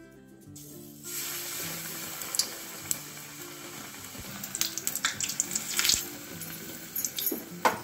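Batter-coated pav slid into hot oil in a kadhai and deep-frying: a steady sizzle begins about a second in, with scattered sharp crackles and pops as the batter hits the oil.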